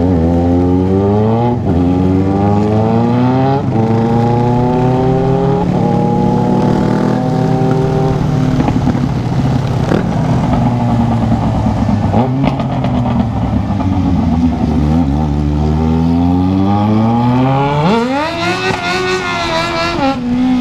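Yamaha XJ6's inline-four engine pulling through the gears. It climbs in pitch and drops back at two quick upshifts in the first few seconds, runs steadier and lower through the middle, then revs hard in a steep rise near the end before the next shift.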